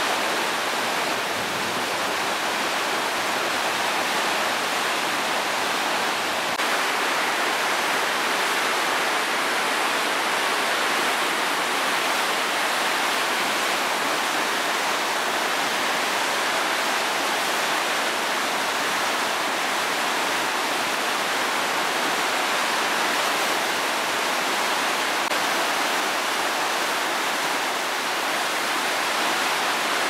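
Rushing water of a river cascade, a steady even rush with no breaks.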